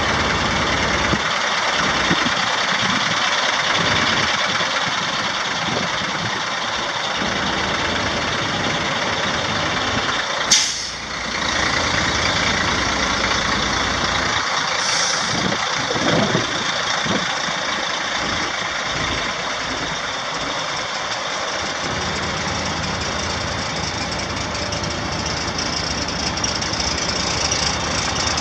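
Caterpillar 3306 inline-six turbo diesel of a 1999 Sterling L9511 dump truck running steadily, with a steady high whine over the engine noise and one sharp burst about ten seconds in.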